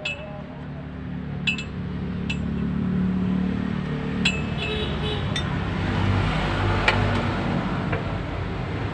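Metal tools and parts clinking sharply about eight times, some with a brief ringing, while a truck's manual transmission is taken apart. Under them a steady low rumble grows louder over the first few seconds.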